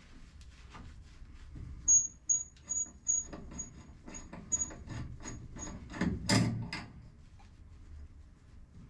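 Fuel-line connector being worked by hand through a microfiber towel: cloth rustling and rubbing, with a run of short high squeaks, about two to three a second and fading, and a louder rustle a little past halfway.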